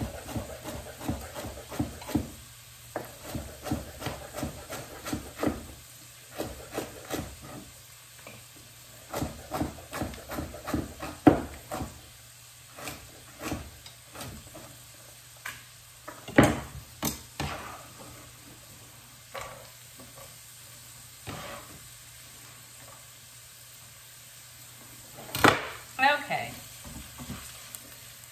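Chef's knife chopping thin carrots on a wooden cutting board in quick runs of sharp chops, thinning out in the second half, with a few louder knocks later on. A low sizzle of vegetables cooking in a pot runs underneath.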